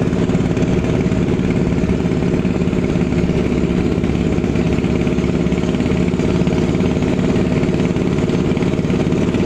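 Small motorboat engine running steadily as the boat travels, a constant drone whose pitch holds even throughout.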